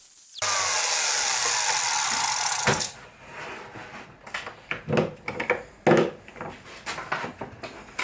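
A handheld electric power tool runs steadily for about two and a half seconds, then stops. It is followed by a series of irregular knocks and clatters of wood and tools being handled on a workbench.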